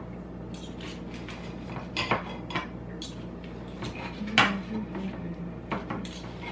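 Table knife and fork cutting a tortilla burrito on a plate: scattered clinks and scrapes of metal cutlery against the plate, the loudest clink a little past the middle.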